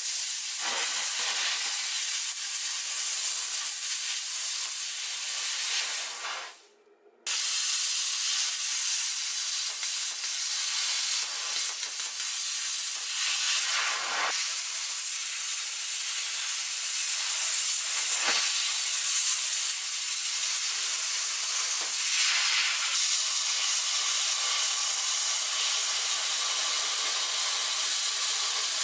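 Plasma cutter cutting the sheet-steel body panel of a 1964 Toyota Land Cruiser FJ40, a loud, steady hiss of the air-plasma jet. About six seconds in the cut stops and the hiss fades out. About a second later it starts again abruptly and runs on steadily.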